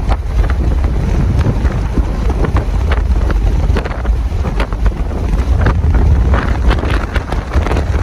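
Wind buffeting the microphone: a loud, unsteady, fluttering rumble.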